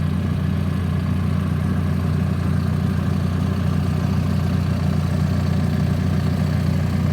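John Deere 650K dozer's diesel engine running at a steady, unchanging speed.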